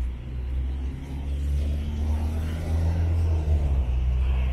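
Road traffic: a car passing on the wet road, its tyre hiss swelling from about a second and a half in, over a steady low rumble.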